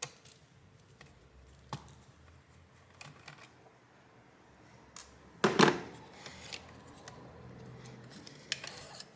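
Scattered small clicks and taps from a screwdriver and laptop parts being handled, with one louder knock about five and a half seconds in.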